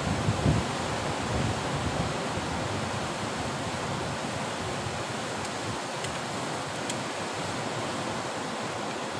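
Surf breaking on rocks below in a steady, continuous rush, with wind buffeting the microphone now and then, most strongly near the start.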